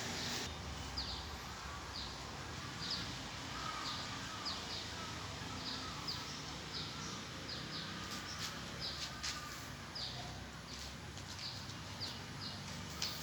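A small bird chirping over and over, short high notes about twice a second, over a steady outdoor background hiss. A few sharp clicks come in the second half.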